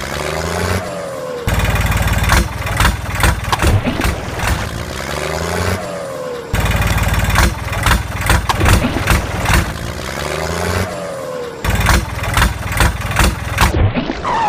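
Looped engine-running sound effect, as dubbed over toy tractors, repeating about every five seconds.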